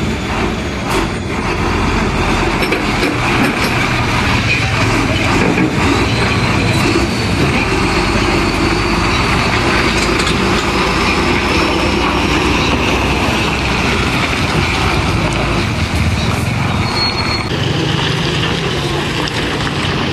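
Heavy diesel dump truck running as it moves slowly on a slick, muddy road. Its engine rumbles steadily, with a faint thin squeal in the middle.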